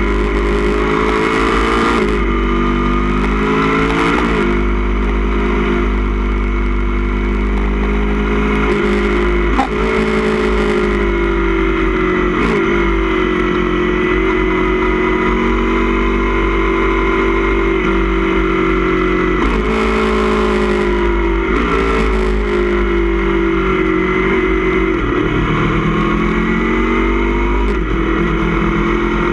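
2016 Aprilia Tuono V4 1100 Factory's V4 engine at track speed through a baffled Austin Racing GP1R exhaust can, its note climbing and dropping sharply again and again as the rider works the throttle and changes gear. Wind rushes over the microphone at times.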